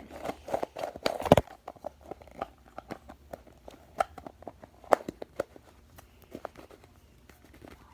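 Slime being squished and worked in the hands, giving a run of small crackling pops and clicks, dense in the first second or so and then scattered.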